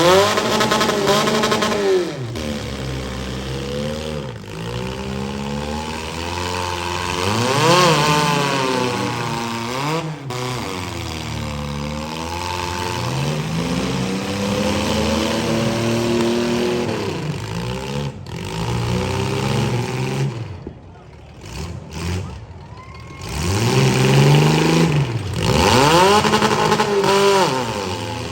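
Demolition derby cars' engines revving hard and easing off again and again, several engines rising and falling in pitch over one another. They briefly drop away a little past the middle.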